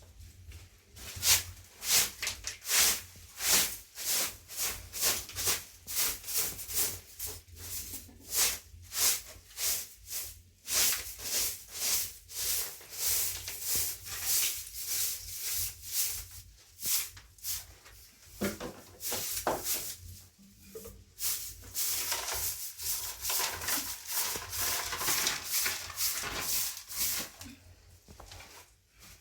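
Repeated hand rubbing or scraping strokes, about two a second, becoming denser and more continuous a few seconds before the end.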